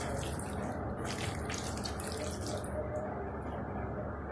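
Wet squelching of a hand mixing raw chicken marinade with yogurt and spices in a steel bowl, in short repeated squishes that stop about three seconds in.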